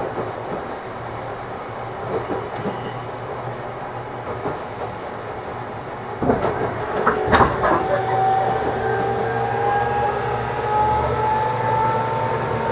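JR Kyushu 813 series EMU (motor car KuMoHa 813-4 with Toshiba GTO-thyristor VVVF inverter) running, heard from inside the car. Steady wheel and rail noise is broken about six seconds in by a cluster of clacks from the wheels over the track. After that the GTO inverter's whine sets in and climbs slowly in pitch as the train gathers speed.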